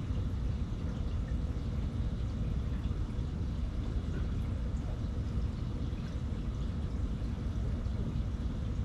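A running aquarium: steady bubbling and trickling water from the air stone and filter.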